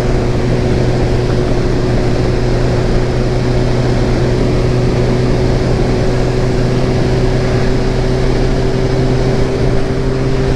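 Motorcycle engine running at a steady cruising speed, its pitch unchanging, with wind noise over the microphone.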